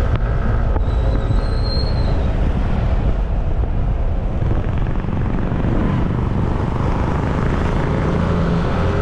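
Steady wind rush over the microphone and the drone of a Yamaha scooter's engine cruising at about 60 km/h, with a brief high whistle about a second in.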